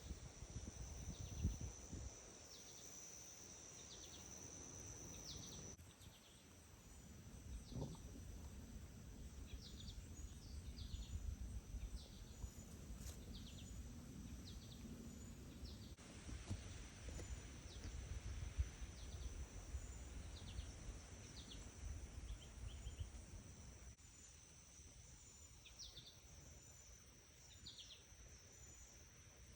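Faint outdoor summer ambience: a steady high-pitched insect drone with many short, falling bird chirps over a low rumble, changing abruptly a few times.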